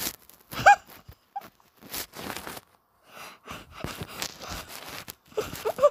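A person laughing in breathy, wheezing bursts, with short squeaky high-pitched notes about a second in and again near the end.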